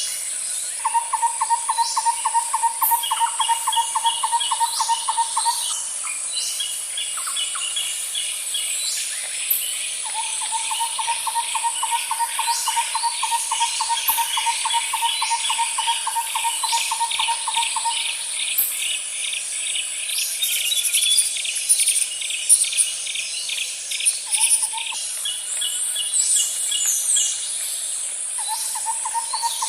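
Natural soundscape of insects and birds: a steady high insect drone, with long rapid trills that start and stop several times and quicker, higher chirping trills over them.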